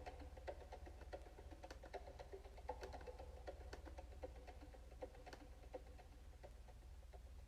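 Faint, irregular percussive notes that grow sparser and quieter: the tail of music made in real time from a person's heartbeat by a Sound of Soul device.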